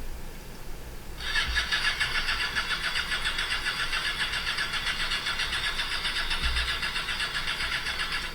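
Reciprocating saw (Sawzall) starting about a second in and running steadily with a fast, even stroke as it cuts into a barrel, then stopping suddenly near the end.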